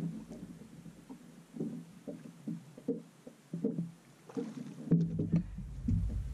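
Background music of short plucked notes, with a low rumble coming in about five seconds in.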